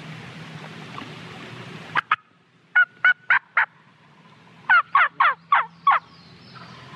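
Crow cawing: a single caw about two seconds in, then a series of four loud, harsh caws and, after a short pause, a series of five.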